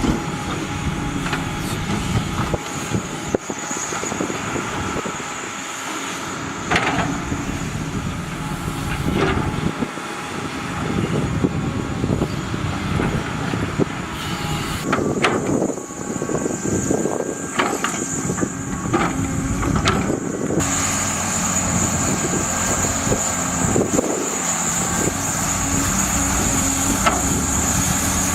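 Heavy diesel construction machinery running steadily, with scattered metallic clanks and knocks, several close together in the middle stretch.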